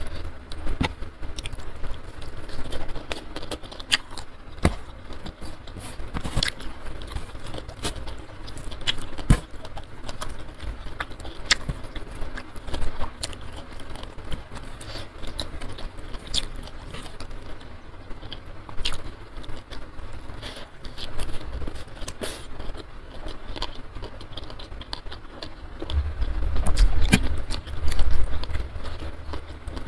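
Close-miked eating sounds: chewing with many scattered short mouth clicks, and fingers picking at flaked steamed tuna and boiled leaves on a wooden tray. A low rumble comes in near the end.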